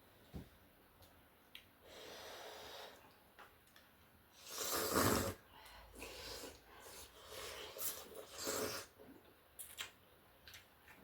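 Close-up eating sounds: several breathy slurps of noodle soup, the loudest about halfway through, with small clicks of chewing and utensils between them.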